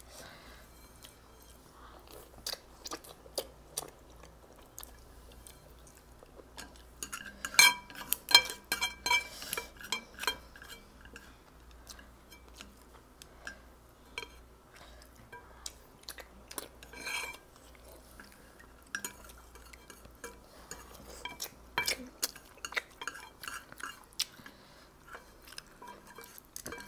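Wooden chopsticks clicking and scraping against a glass noodle bowl, mixed with chewing of instant noodles. The clicks come irregularly, with a dense run of louder clicks about eight seconds in.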